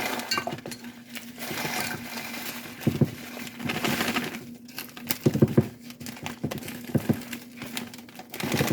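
Plastic bag crinkling as crushed peppermint candy is shaken out of it and clinks into a glass mason jar, with a few sharp knocks along the way.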